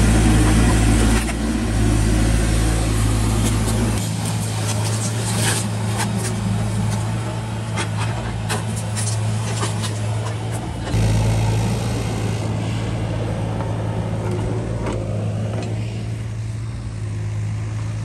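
Cat mini excavator's diesel engine running steadily under hydraulic load as its bucket and thumb grab and move cut logs, with scattered knocks and cracks of wood and branches. The engine's pitch and level shift a few times as the machine works.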